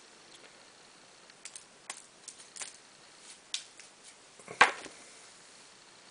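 Small clicks and faint scrapes of a kitchen knife trimming the edges of hard, brittle salt soap bars, with one sharper knock about four and a half seconds in as the knife is set down on the counter.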